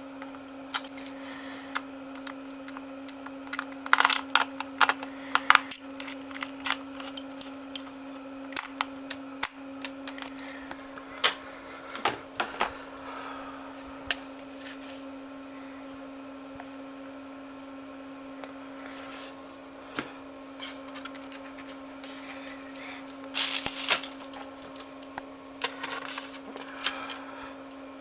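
Hands working on a laptop, handling small hard parts: scattered sharp clicks and short light clatters, with a cluster about four seconds in and another near the end, over a steady low hum.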